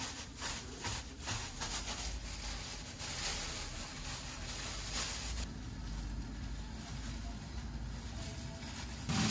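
A plastic bag crinkling and rustling in hand for the first couple of seconds, then a low steady rumble.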